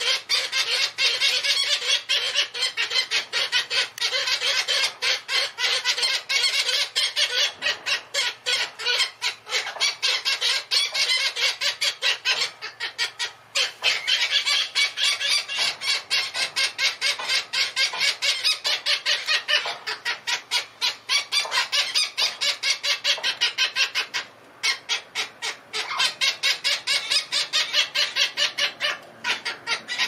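Young Australian king parrot's rapid, pulsing begging calls, several a second, while being fed beak to beak by the adult male. The calls break off briefly about midway and again near the end.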